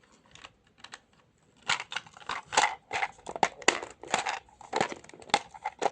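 Hard plastic clicking and clattering as a Polly Pocket playset's small pieces are shifted and its lid is pushed to close. The lid does not latch because a piece inside is in the way. A few faint clicks at first, then a run of sharp, irregular clicks from about two seconds in.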